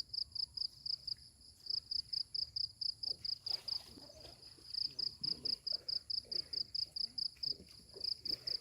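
An insect chirping in a steady run of high pulses, about five a second, breaking off briefly now and then.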